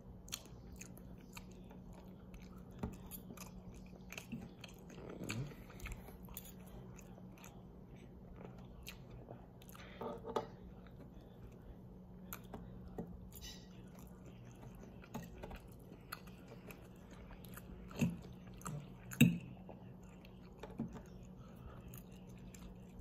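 A person chewing and eating lemon chicken with couscous: soft mouth sounds with scattered small clicks and a few louder knocks, over a steady low hum.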